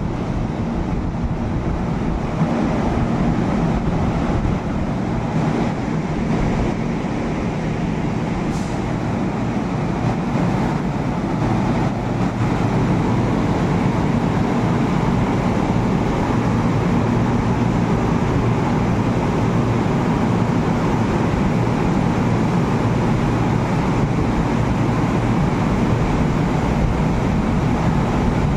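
Steady hum and rumble of a KTM electric commuter train standing at the platform with its doors open.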